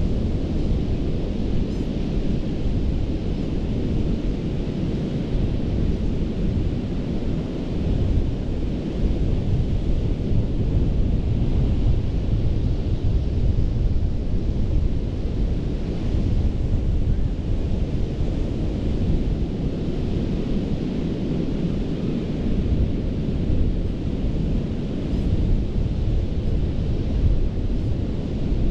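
Gulf of Mexico surf washing onto a sandy beach, a steady rush with the hiss of breaking waves swelling every few seconds, under a deep rumble of wind buffeting the microphone.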